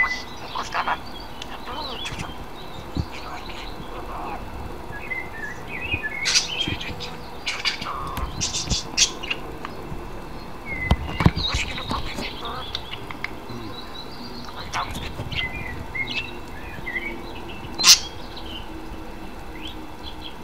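Budgerigar chirping and chattering in short, scattered calls, with a few sharp clicks in between.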